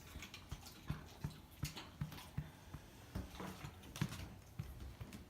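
Boxer dog's persistent hacking cough with dry heaving: a rapid run of short harsh hacks, about three a second, with a few louder heaves in between.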